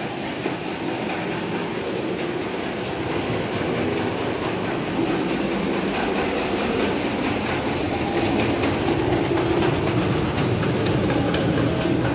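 Steady rumble that slowly grows louder: a Mitsubishi rope-traction passenger elevator travelling in its shaft.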